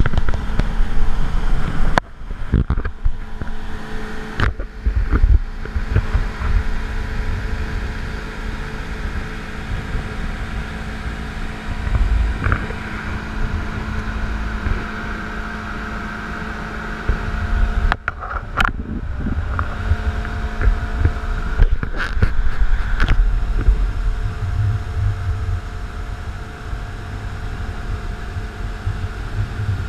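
Evinrude 115 outboard motor running steadily at towing speed, a constant drone, with wind buffeting the microphone. The sound dips briefly a few times.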